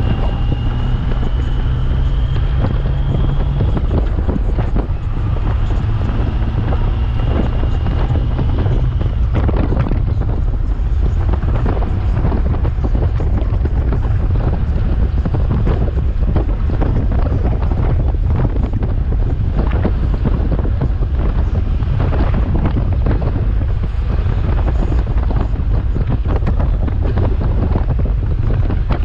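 Heavy wind buffeting on the microphone of a Honda Gold Wing touring motorcycle riding at road speed. In the first several seconds the engine note climbs twice, with a short drop between, as the bike accelerates.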